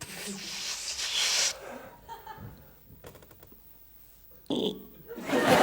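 Vocal sound effects made by a man at a microphone: a hissing rush that builds for about a second and a half, then a few faint clicks and a short sharp sound near the end. Studio audience laughter starts up just before the end.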